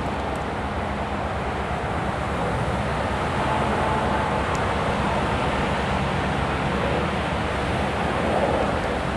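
Several diesel freight locomotives running under power as they approach, a steady low engine drone under a broad rushing noise, slowly growing louder.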